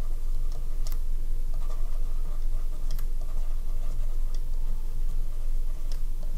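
A stylus writing on a tablet screen: a sharp tick every second or so, with lighter taps and scratches between, over a steady low electrical hum.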